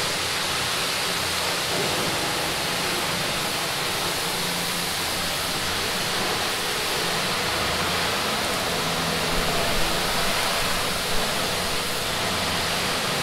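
A steady, even hiss, with a few faint knocks in the last few seconds.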